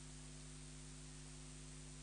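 Near silence: a faint, steady hiss with a low electrical hum.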